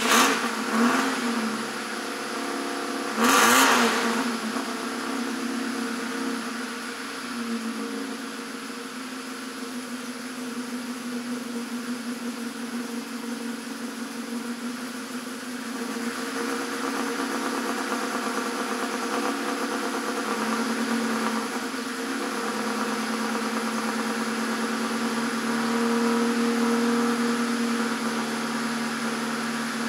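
Citroën GS air-cooled flat-four engine running just after a cold start. It is blipped near the start, with a short loud burst about three and a half seconds in, then settles to a steady idle that rises slightly in speed twice later on.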